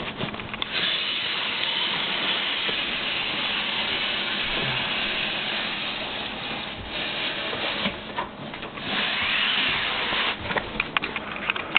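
Cardboard scraping against cardboard as a large display box is slid up out of its shipping carton: one long sliding rush lasting several seconds, a brief pause, a second shorter slide, then scattered crinkles and taps near the end.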